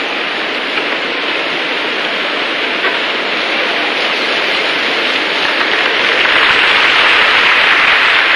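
Gymnastics arena crowd: a dense hiss of applause and crowd noise that swells louder about six seconds in.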